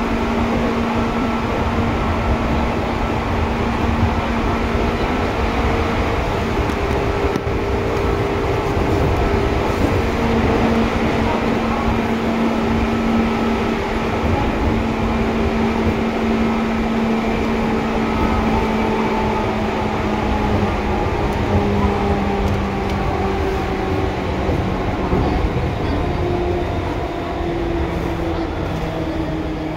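Seibu 2000 series electric train running, heard from inside the car: a steady rumble of wheels on rail under even motor and gear tones. From about two-thirds of the way through, the tones start falling in pitch as the train slows.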